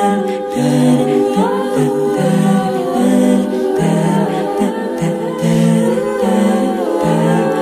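Background music with singing over held low notes.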